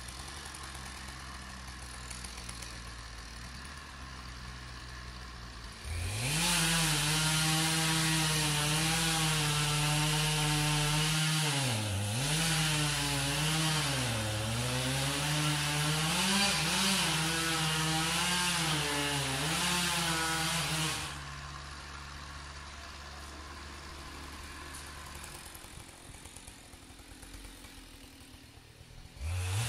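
Husqvarna 572 XP two-stroke chainsaw idling, then revved to full throttle about six seconds in and cutting wood for some fifteen seconds, its pitch dipping repeatedly as the chain loads up in the cut. It drops back to idle, falls quiet, and revs up again at the very end.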